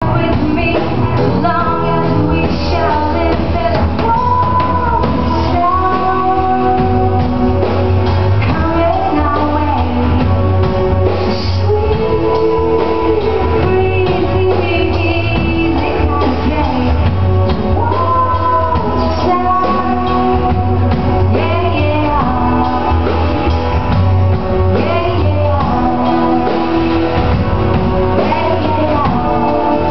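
Live band performing a song: a woman singing over guitars and a drum kit, recorded with muffled, dull quality through a small camera's microphone.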